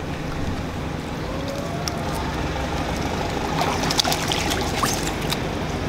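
Macaques splashing and padding through a shallow muddy puddle, with a few sharper splashes a little past the middle, over a steady low background rumble.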